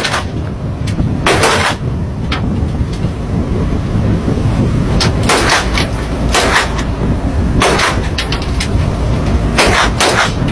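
Gunshots, about half a dozen sharp cracks at irregular intervals, from rifles fired toward a fishing boat as warning shots. They sound over the steady low rumble of the patrol ship's engine and the sea.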